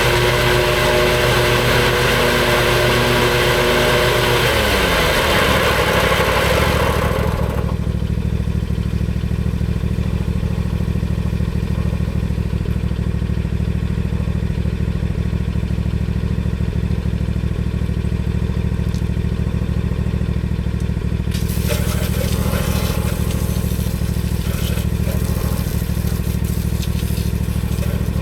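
Lawn mower engine running fast, then its pitch falls about four to five seconds in and it settles into a steady, lower note. Near the end a rattling hiss joins the engine.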